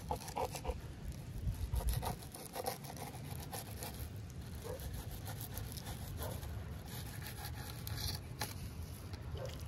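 Fillet knife slicing and scraping along a halibut's bones: faint, short scratchy strokes, most frequent in the first few seconds, over a low steady background rumble.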